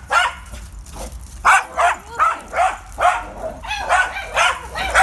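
A small dog barking: one bark at the start, then rapid, steady barking at about three barks a second from about a second and a half in.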